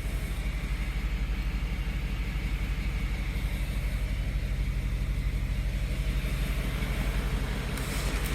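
Steady low mechanical drone with an even, rapid pulse, as from a vehicle engine or pump running.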